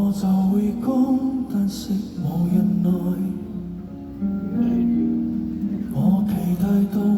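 Live concert music over a sound system: a slow song being played, with steady held notes.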